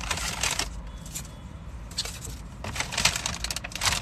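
Paper fast-food bag rustling and crinkling in irregular bursts as a hand rummages inside it, over a low steady hum.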